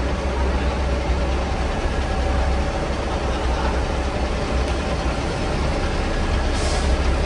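Diesel engine of a coach bus running low and steady as the bus creeps past close by, with other buses idling around it. A short hiss near the end.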